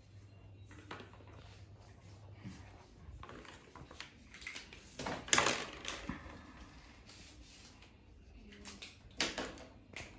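Felt-tip markers scratching over paper in short strokes, with two louder rustling knocks about five and nine seconds in as paper, markers or lap desks are handled.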